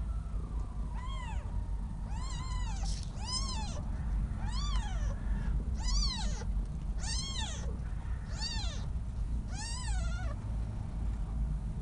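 Young kitten mewing over and over: eight thin, high-pitched mews, each rising then falling, about one every second and a bit.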